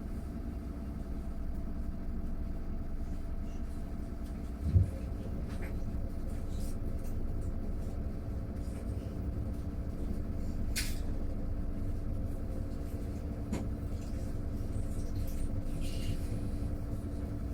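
Mercedes-Benz eCitaro G articulated battery-electric bus under way, heard from inside: a steady low road and tyre rumble with a faint steady electric drive hum and no engine sound. A single low thump about five seconds in.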